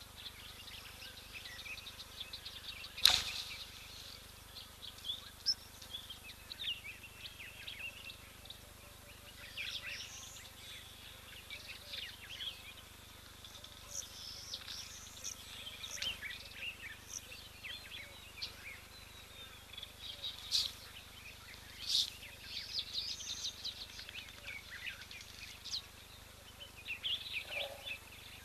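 Small birds chirping and calling in bursts from the surrounding bush, over a faint steady outdoor hiss. Three sharp clicks cut through, the loudest about three seconds in and two more close together near the two-thirds mark.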